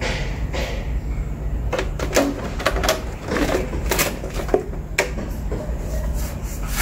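Irregular clicks and knocks, bunched into quick runs, over a steady low hum.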